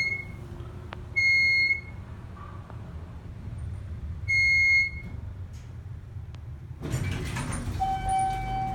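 An elevator's electronic signal beeps three times, each a loud, high, half-second tone, at uneven intervals. About seven seconds in comes a burst of noise, then a lower steady tone for over a second near the end.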